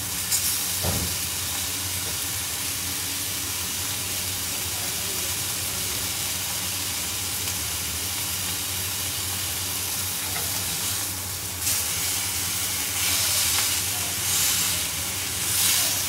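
Marinated chicken breasts sizzling steadily on a ridged grill pan over a gas flame. A short clack of metal tongs on the pan about a second in, and the sizzle swells in surges near the end as the tongs move the pieces.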